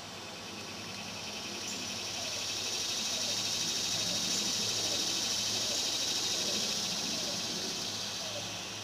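High-pitched insect buzzing, a fast pulsing trill that swells over a few seconds and fades again near the end.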